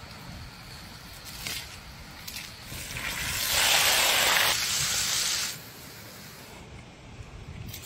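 Steaks sizzling in butter in a cast iron pan. The sizzle swells about three seconds in and cuts off suddenly near six seconds, over a low steady rumble.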